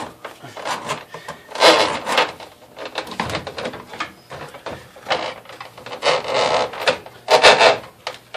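A run of irregular rasping, scraping strokes, each about half a second long and roughly one a second, made by hand work on the clogged plumbing.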